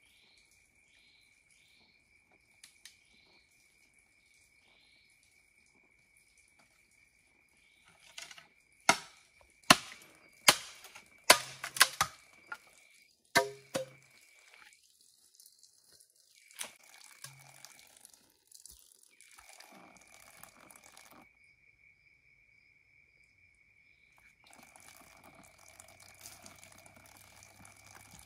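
About seven sharp knife blows on bamboo, starting about a third of the way in, over a steady high insect trill. Near the end, water starts running from a bamboo pipe.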